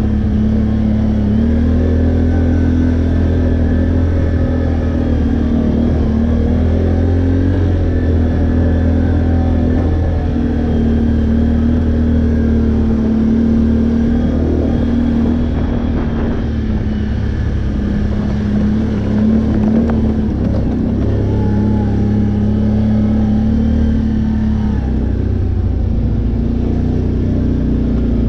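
ATV engine running steadily under the rider while cruising a dirt trail, its pitch easing slightly up and down with the throttle.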